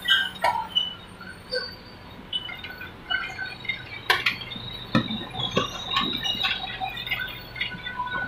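Paper-straw production machinery running: a low steady hum under many quick scattered squeaks and clicks, with a sharp click about four seconds in and a few dull knocks soon after.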